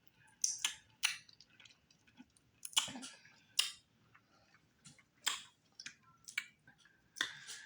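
A person chewing fufu with okra stew and tripe close to the microphone, making a dozen or so sharp, irregular mouth smacks and clicks.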